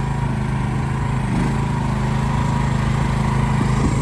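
Small engine of a mini excavator running steadily under work, a lawnmower-like drone.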